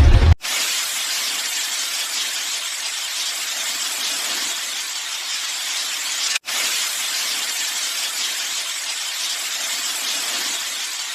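Steady spraying hiss, even and without any pitch or rhythm, broken once by a momentary cut about six seconds in and then continuing the same.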